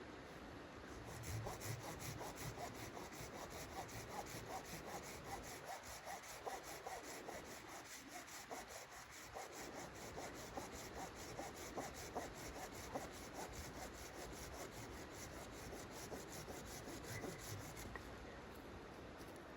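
A hand saw cutting wood with steady, even back-and-forth strokes. It starts about a second in and stops near the end.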